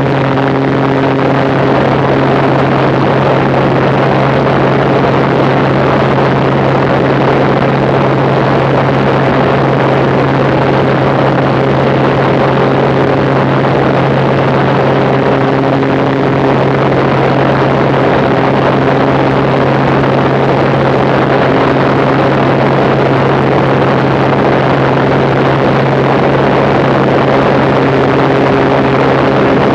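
Maule M7-260 amphibian's six-cylinder Lycoming piston engine and propeller droning steadily in cruise flight: a strong low hum over a constant rushing noise.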